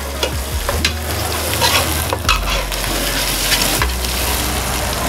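Curry spice paste (rempah) frying in oil in a stainless steel pot, sizzling steadily while a metal spoon stirs and scrapes through it, with scattered clicks of the spoon against the pot. It is being cooked over moderate heat until the spices colour the oil golden.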